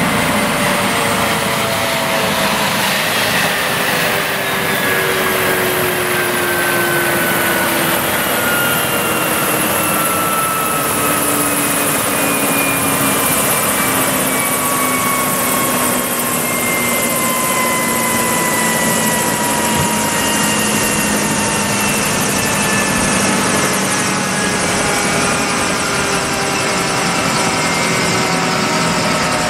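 Eurocopter EC155 twin-turbine helicopter running on the ground with its rotor turning, a steady loud turbine and rotor noise. Several whining tones slowly fall in pitch throughout.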